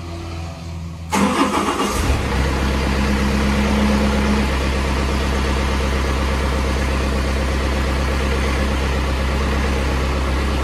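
Lonking CDM6060 mini excavator's diesel engine catching about a second in, then running at a steady idle. It has just had its filters changed and, in the operator's words, the pump is short of diesel.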